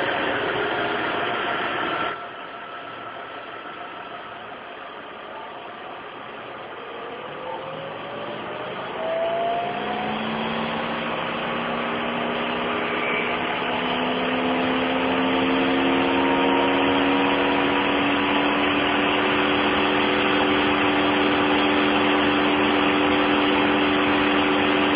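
Mercedes-Benz W211 E-Class engine idling, just after starting, and making an abnormal noise at idle. The engine noise drops about two seconds in. From about seven seconds a whine sets in and rises slowly in pitch, then holds steady and grows louder over the idle.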